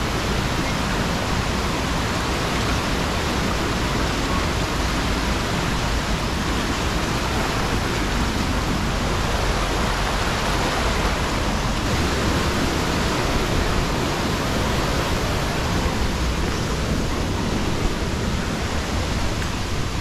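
Steady rush of the Düden river's water pouring through a stone-lined channel around stepping stones.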